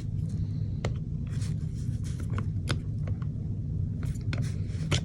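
Scattered light clicks and taps from an airsoft gearbox shell being pressed closed by hand, over a steady low hum.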